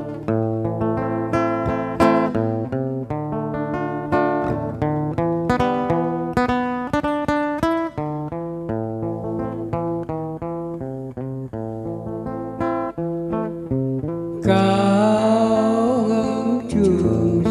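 Acoustic guitar playing a plucked melody over bass notes as a song's introduction. About fourteen seconds in, a man starts singing into a microphone over the guitar.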